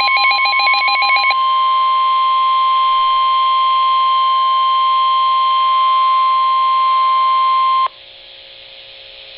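NOAA Weather Radio 1050 Hz warning alarm tone: one steady, loud high tone, with a rapid pulsing beep laid over it for about the first second and a half. The tone cuts off abruptly near the end, leaving faint radio hiss, as the broadcast turns to the spoken warning.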